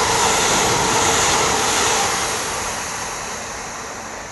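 Class 333 electric multiple unit passing at speed: steady wheel-on-rail running noise that starts to fade about halfway through as the train draws away.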